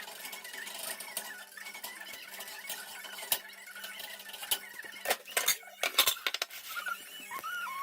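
Scattered clicks and light clinks over a steady low hum, with a few short rising squeaks near the end.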